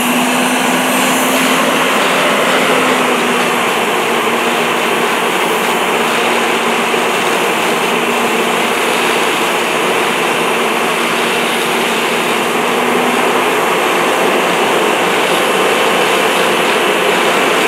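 Steady loud roar of fire apparatus engines and pumps running at a working fire, mixed with the rush of hose streams. A low steady hum stops about 13 seconds in.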